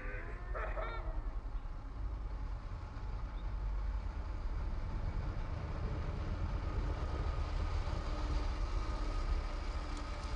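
A child's electric scooter motor whining as the scooter approaches, getting louder over the last few seconds, over a steady low rumble.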